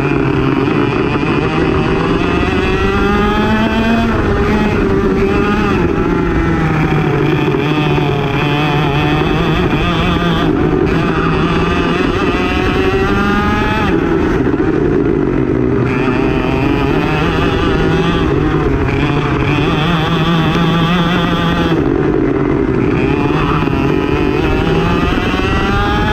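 Racing kart engine at full race pace, loud and continuous. Its pitch climbs in long rising sweeps several times under acceleration and falls back between them as the driver lifts and brakes.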